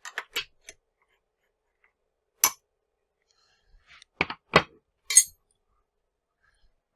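Metal tool clinks and knocks as a steel edge finder is taken out of a CNC mini mill's spindle and set down. There are a few light clicks at first, a sharp strike about two seconds in, and two more about four seconds in. A brighter, ringing clink follows about five seconds in.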